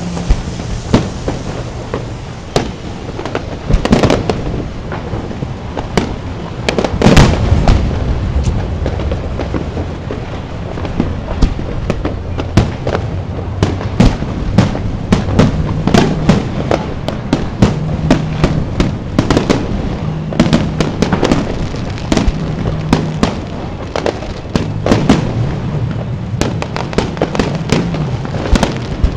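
Aerial fireworks shells bursting one after another in a display, with many sharp bangs and crackles. The loudest bang comes about seven seconds in.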